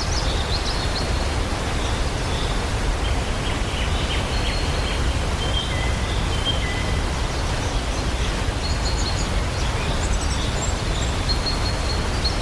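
Waterfall rushing steadily, with small birds chirping and whistling high above it now and then.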